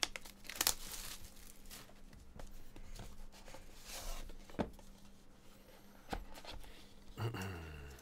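Cardboard box packaging being handled: scattered taps and scrapes as the box is turned over, a brushing slide about halfway through as the white inner box is pulled from its sleeve, and the click of its lid being opened.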